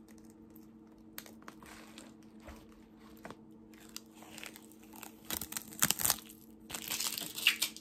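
Clear plastic film crinkling as it is pulled off an eyeshadow palette. It is faint at first, with a few light crackles, then loud in two bursts near the end.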